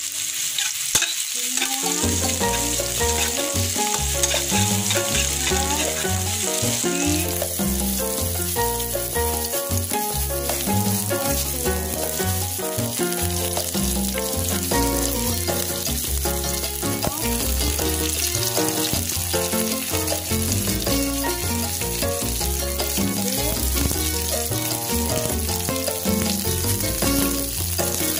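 Sliced garlic, shallots and chilies sizzling as they are sautéed in oil in a wok, turned now and then with a metal spatula, under background music with a steady run of notes.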